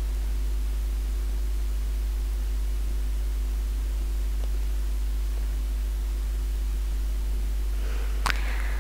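Steady low electrical hum with a faint hiss, with one sharp click near the end.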